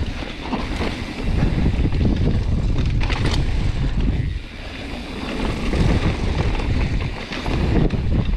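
Gale-force wind buffeting an action camera's microphone: a loud, gusting rumble that eases briefly about four to five seconds in, with a short clatter about three seconds in.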